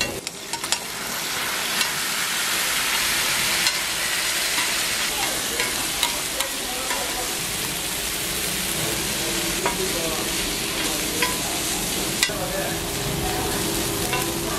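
Curry leaves and meat pieces sizzling on a flat griddle, stirred and scraped by a metal spatula, with a sharp tap of the spatula every second or two.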